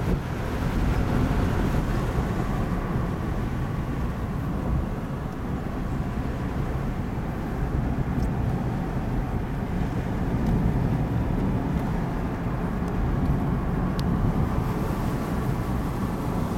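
Steady road noise from inside a moving car: tyre and engine rumble as it drives down a winding road.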